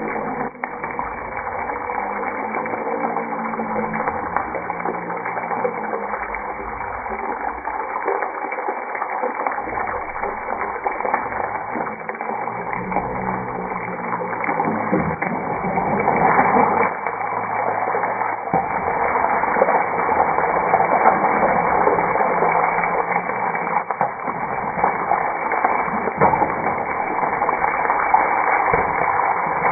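Whole boiled eggs frying in hot oil in a nonstick pan: a steady sizzle with crackling, growing louder about halfway through as the eggs are turned.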